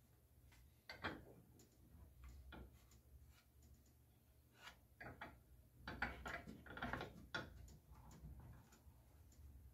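Faint scattered clicks and knocks of a wooden float frame and its corner clamp being handled, as the glued corner is pressed and set in the clamp. They are busiest from about five to seven and a half seconds in.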